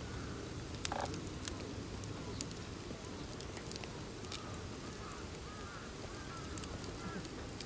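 Wood campfire crackling with scattered sharp pops over a steady low wind rumble. From about halfway, a flock of birds calls faintly, many overlapping honking calls.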